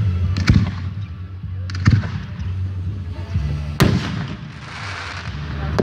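Aerial fireworks shells bursting overhead: three sharp bangs about a second and a half to two seconds apart, the last followed by a crackling hiss.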